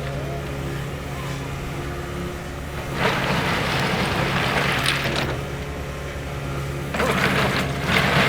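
Track hoe's diesel engine running steadily. Two stretches of gravelly scraping and crunching, about three seconds in and again near the end, as the bucket drags and levels crushed rock.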